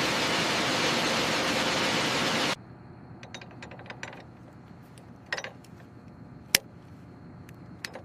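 A loud, steady rushing noise that cuts off abruptly about two and a half seconds in. It gives way to a quiet background with scattered light clicks and clinks.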